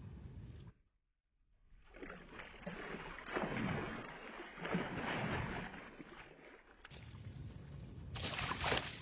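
Water splashing in irregular surges as a large fish caught in a fishing net thrashes at the surface while the net is pulled in against the boat's side. Low wind rumble on the microphone before and after, with a short silent gap about a second in.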